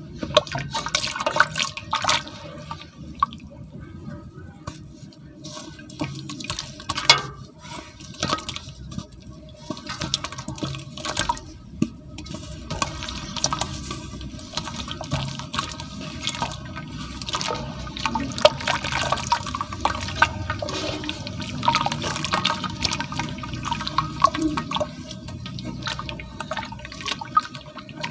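Hands splashing and sloshing water in a basin while dipping and squeezing a soaked block of pure cement, with water dripping and the wet cement crumbling apart. Irregular sharp splashes and crackles come throughout.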